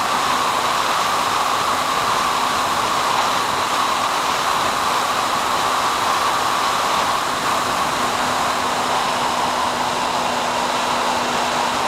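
Steady, unbroken rushing noise with a faint constant low hum on the Skyhunter FPV plane's recorded audio feed in level cruise flight.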